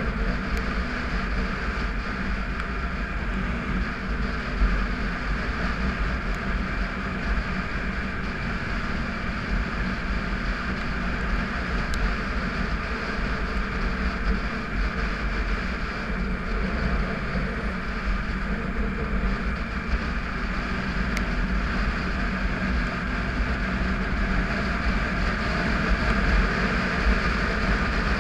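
Triumph Tiger 955i's three-cylinder engine running steadily at cruising speed, with wind noise on the microphone; it grows slightly louder near the end.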